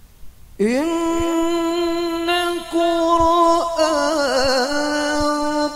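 Male qari reciting the Quran in melodic tilawah style through a microphone and loudspeakers. About half a second in his voice glides up into a long held note, then, after brief breaks, moves through quick ornamented turns in pitch.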